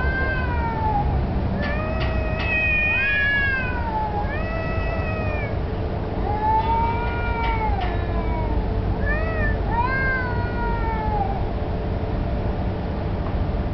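Stray cats yowling at each other in long, drawn-out howls that rise and fall in pitch, one after another with short gaps. This caterwauling is typical of a territorial standoff, though it may be mating. A steady low rumble runs underneath.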